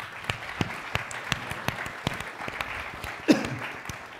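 Audience applauding, a steady patter of many hand claps. A little over three seconds in there is one brief louder sound that falls in pitch.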